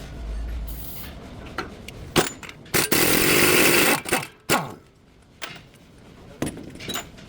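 Workshop tool sounds: a power tool runs in one burst of about a second, with sharp metal clicks and knocks before and after it.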